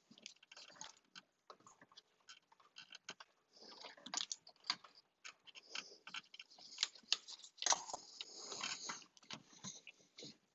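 Faint, irregular small clicks, scrapes and rustles of hands and a tool working a fluid hose loose from its fitting in a car's engine bay. The longest, loudest scraping comes about eight seconds in.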